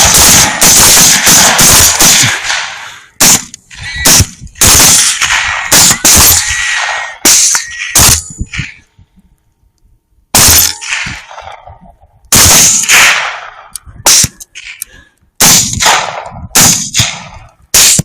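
Several rifles firing together in rapid volleys, shots overlapping for the first few seconds, then thinning out into scattered single shots and short strings with pauses between them.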